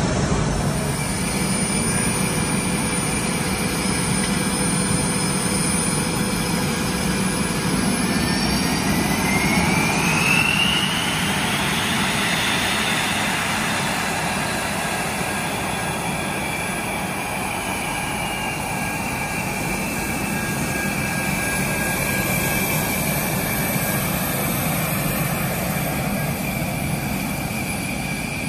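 Saab JAS 39 Gripen C's Volvo RM12 turbofan running on the ground: steady jet noise with a high whine, and a second whine that rises in pitch about eight to eleven seconds in.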